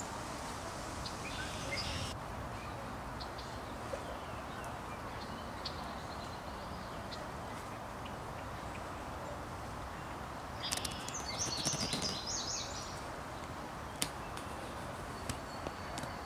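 Wild birds calling over a steady background hiss: a few faint chirps near the start and a denser burst of high chirps about two-thirds through, with a few sharp clicks near the end.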